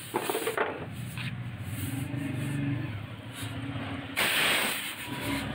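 Deep freezer cooling coil being flushed: pressurised flushing agent spraying out of the open copper tube in a loud hiss about four seconds in, after a low steady hum and a few light clicks.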